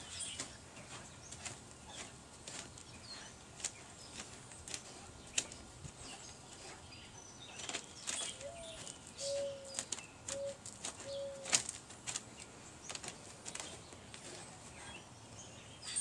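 A Great Pyrenees digging in dry dirt with its front paws: an irregular run of scratching and scraping strokes. Birds chirp faintly, and a dove coos four notes around the middle, the first sliding upward.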